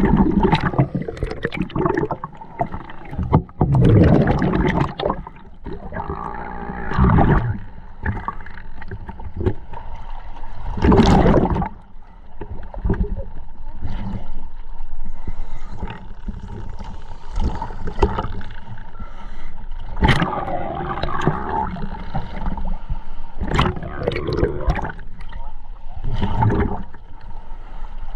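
Scuba regulator breathing underwater: exhaled bubbles burst out and gurgle every few seconds, with a steady low rumble beneath.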